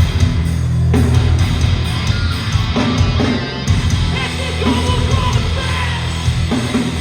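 Hardcore band playing live: heavy distorted guitars, bass and drums, with shouted vocals coming in around the middle.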